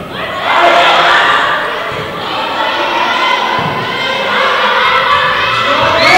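Young spectators and players shouting and cheering over a volleyball rally in a gym, many high voices at once, with a thud of the ball about three and a half seconds in.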